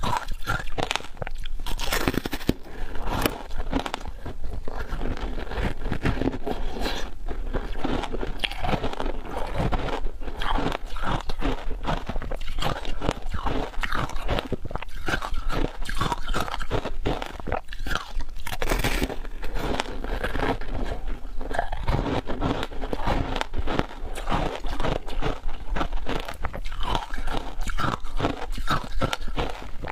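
A block of frozen shaved ice coated in passion fruit pulp being bitten and chewed close to a lapel microphone, giving dense, crisp crunching throughout.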